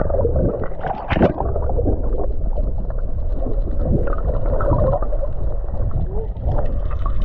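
Muffled wind and water noise on a small fishing boat at sea: a steady low rumble, with a couple of sharp knocks about a second in.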